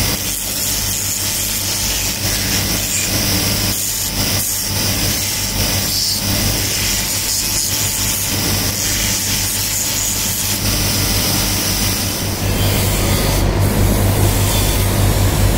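Belt-driven abrasive grinding wheel running with a steady hum while a knife handle is pressed against it, a rasping hiss of grinding over the motor. About twelve seconds in, the sound turns louder and rougher.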